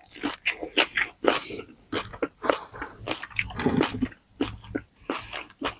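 Close-miked chewing of crispy pata, the deep-fried pork knuckle's crackling skin crunching between the teeth in a quick, irregular run of short crunches.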